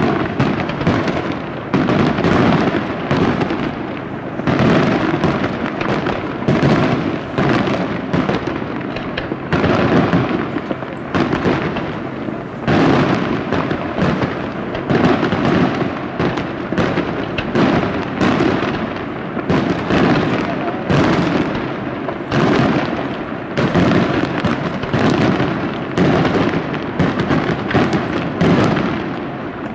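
Aerial fireworks display: a dense, unbroken barrage of shell bursts and reports, many bangs every second overlapping with crackle.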